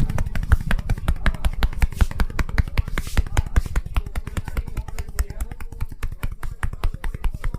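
Hands rapidly slapping and tapping on a person's head and shoulders in a massage, a fast even rhythm of about seven sharp strikes a second.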